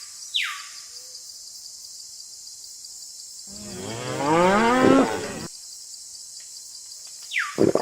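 A cow mooing once, a single drawn-out moo of about two seconds whose pitch rises and then falls. Short falling whistle-like tones come near the start and near the end, over a steady high-pitched hiss.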